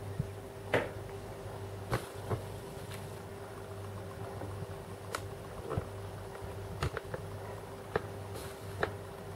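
HO-scale ALCO C-630 model's Tsunami sound decoder playing a low, steady diesel idle through its small speaker, with a few faint clicks scattered through.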